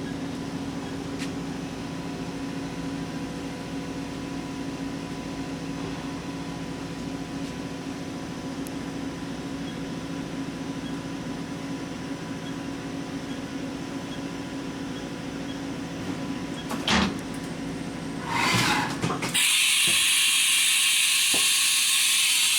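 Haas HS-1 CNC horizontal machining center running, a steady machine hum with several steady tones. About 17 seconds in there is a sharp clack, and near the end a loud steady hiss takes over.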